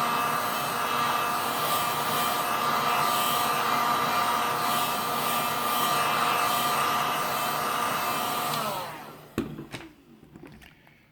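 Electric heat gun running with a steady fan whine. About eight and a half seconds in it is switched off and the whine falls in pitch as the fan spins down, followed by a few light knocks.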